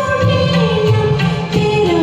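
Hindi film song played as a karaoke backing track, with a held, sliding melody line over a steady rhythmic beat and possibly live singing.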